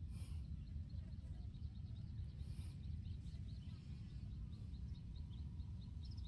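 Steady low outdoor rumble, with a small bird's rapid run of short high chirps, about four a second, starting about a second in.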